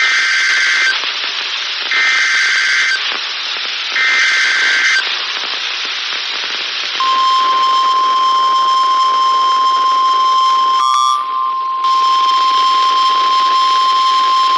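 NOAA Weather Radio alert signalling: three short bursts of SAME digital header data about two seconds apart, then the steady 1050 Hz warning alarm tone starting about seven seconds in, with a brief break near eleven seconds, all over constant radio static hiss. The sequence marks the start of a new warning broadcast.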